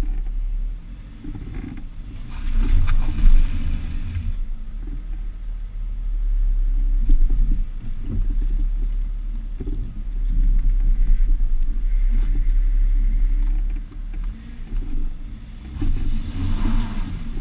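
Jeep driving off-road, heard from a camera on its driver-side mirror: a steady low rumble from the engine and the running gear, with louder surges about 2 seconds in and near the end.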